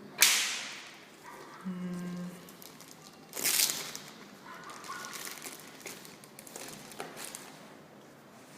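Packaging being handled as items are taken out of the box: a sharp rustle just after the start that fades over about a second, a second louder rustle about three and a half seconds in, and a few light clicks after it.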